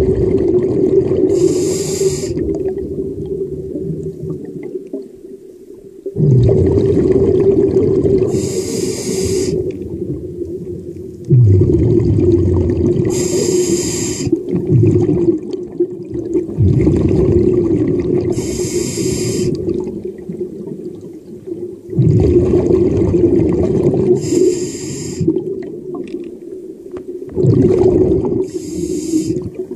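Scuba diver breathing through a regulator underwater, in a slow, regular cycle about every five seconds: each breath a rush of exhaled bubbles and a hiss from the regulator. A steady low hum runs underneath.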